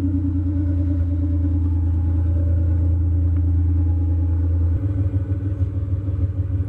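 Chevy S10 pickup's engine idling, heard at its exhaust as a steady deep rumble that turns choppier about five seconds in.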